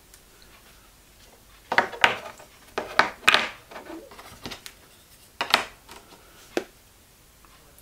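Small metal and 3D-printed plastic bandsaw blade-guide parts being handled and set down on a cutting mat: a scattering of sharp clicks and light knocks, clustered between about two and seven seconds in.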